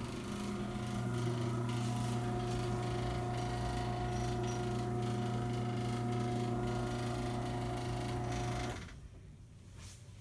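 Craftsman belt-drive garage door opener running as it raises the door: a steady motor hum that stops abruptly near the end.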